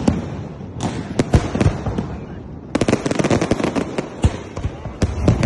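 Aerial fireworks going off overhead: a string of sharp bangs, with a dense rapid crackle of many small reports about halfway through.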